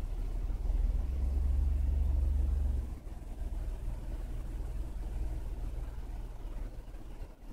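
A deep, steady rumble, heavier for the first three seconds or so and then dropping back to a lower, even level.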